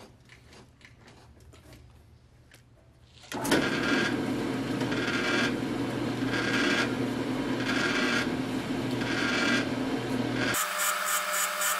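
Metal-cutting band saw cutting through a round steel tube: after about three seconds of quiet running, the blade bites in with a loud steady rasping that swells and dips about every second and a half. Near the end the sound changes abruptly to a harsher, higher rasp.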